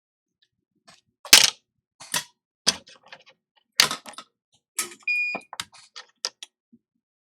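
Small tools clicking and clacking at irregular intervals while a capacitor is pulled off an iPhone logic board. One short, high electronic beep sounds about five seconds in.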